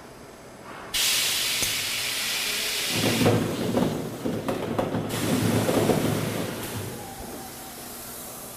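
A sudden hiss of compressed air about a second in as the pneumatic end-discharge cover of a stainless steel dual paddle mixer opens. Balls then clatter out through the discharge chute for a few seconds before it dies down.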